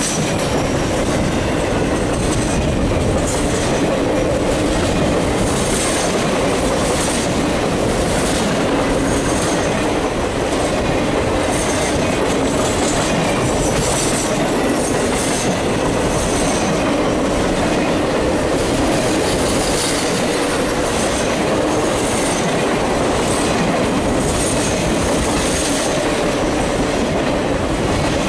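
Triple Crown RoadRailer trailers rolling past close by on their rail bogies: a steady loud rumble of steel wheels on rail, with repeated clicks as the wheels cross rail joints and recurring high-pitched wheel squeals.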